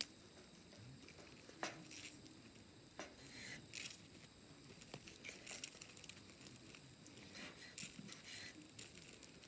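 Knife slicing a grilled rib steak on a wooden cutting board: faint soft tearing through the meat, with scattered clicks as the blade meets the board.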